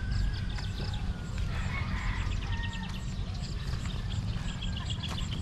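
Farmyard ambience: small birds chirping in quick repeated trills and faint calls of chickens, over a steady low rumble.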